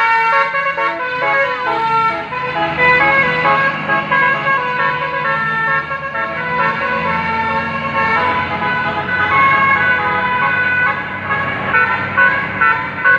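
Basuri multi-tone bus horn (telolet) playing a melody as a continuous run of short stepping notes, with a low steady hum underneath.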